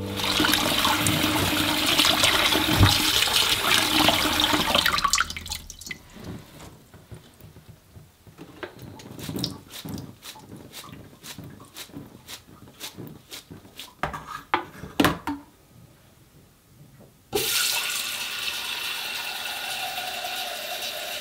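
Kitchen tap water running into a stainless steel sink. Then a quieter stretch of scattered knocks and drips as greens are handled over the sink. About seventeen seconds in, the tap runs again with a steady rush, filling a stainless steel saucepan.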